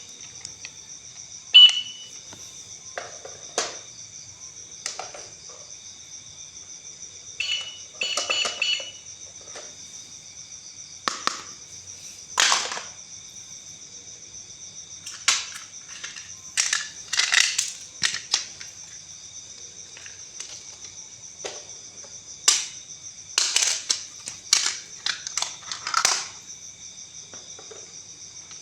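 Plastic toys being handled during an unboxing: irregular sharp clicks, knocks and clatters, some in quick clusters, with a few brief high tones. A steady high-pitched drone runs underneath.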